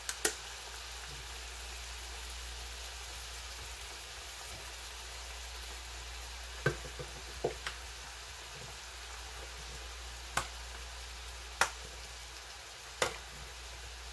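Mixed vegetables (broccoli, cauliflower, carrots) sizzling steadily in a pot, sautéing in their own released water with none added. Several sharp clicks and taps break in: a pair at the very start, then scattered through the second half.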